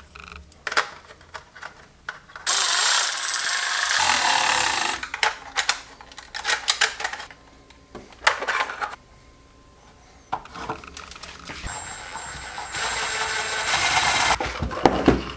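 Cordless drill/driver running in short runs, driving screws into a black plastic housing, the longest run over the last few seconds. Between runs, clicks and rattles of the plastic parts being handled.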